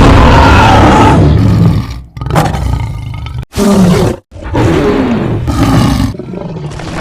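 Sound effect of a saber-toothed cat roaring: a long loud roar that breaks off about a second in, then a string of four or five shorter roars with abrupt gaps between them, the last one quieter.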